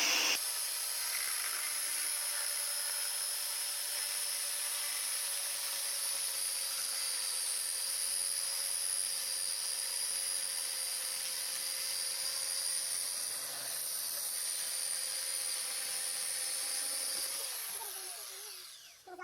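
16-inch electric chainsaw running with a steady high whine, then its motor winding down with falling pitch near the end and stopping.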